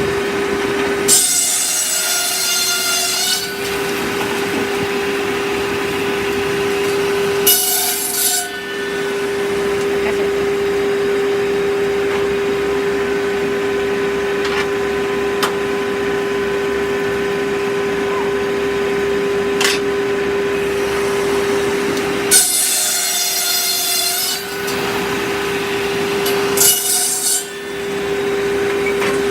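Circular sawmill running with a steady hum, its blade cutting into wood four times: two longer cuts of about two seconds and two short ones. The hum sags slightly in pitch under each cut.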